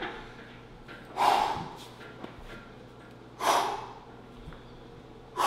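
A man taking three sharp, forceful breaths through pursed lips, about two seconds apart, psyching himself up and bracing to press a heavy barbell for a single.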